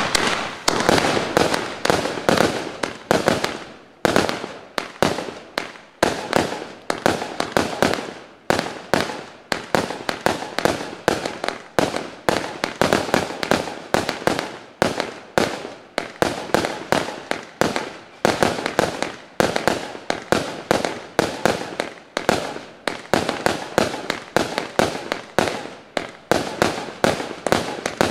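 A 100-shot F2 gold-rain firework cake firing shot after shot, about three sharp reports a second, each dying away quickly before the next.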